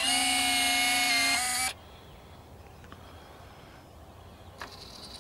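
Electric retractable landing gear of an Avios C-130 Hercules RC model plane retracting: a steady motor whine that cuts off after about a second and a half as the wheels close. A click and a faint high hum follow near the end.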